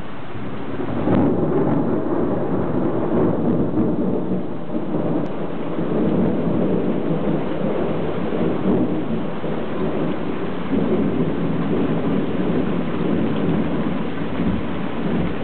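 Thunder rumbling during a thunderstorm, swelling about a second in and rolling on unevenly, with rain falling.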